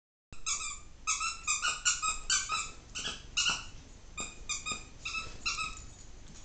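Rubber squeaky dog toy being squeezed over and over, a quick string of about fifteen short, high squeaks that stops shortly before the end.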